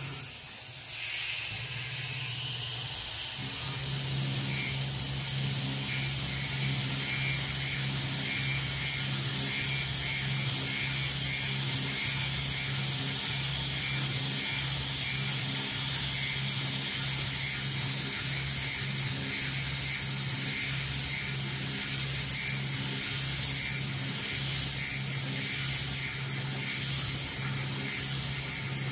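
CNC-converted Grizzly G0704 mill cutting aluminium with a small end mill. Its belt-driven 2.2 kW spindle gives a steady hum, and the hiss of the coolant spray at the cutter runs over it. The hum settles about four seconds in.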